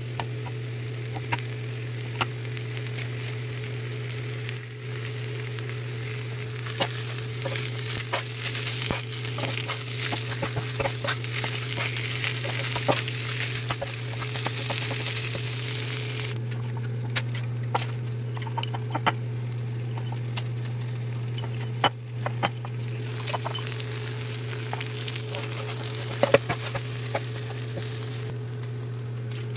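Chopped steak, peppers, onions and cheese sizzling on a flat griddle while a spatula chops and scrapes through the mix, with frequent sharp clicks of the blade on the griddle. The sizzle is strongest in the first half; a steady low hum runs underneath.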